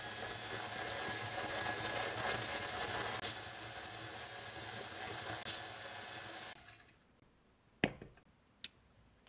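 KitchenAid tilt-head stand mixer running steadily, its beater churning butter and egg in a glass bowl, with two sharp clinks partway through. The motor stops about six and a half seconds in, followed by a few short clicks as the mixer head is tilted up.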